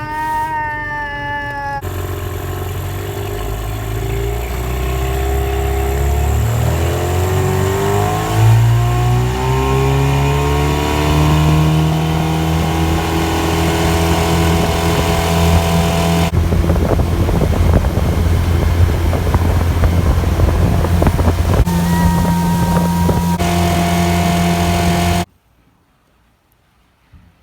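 9.9 hp Mercury outboard motor on an aluminum boat opened up: its pitch climbs for several seconds as the boat picks up speed, then holds steady at full speed with a rough rushing noise. The sound cuts off abruptly near the end.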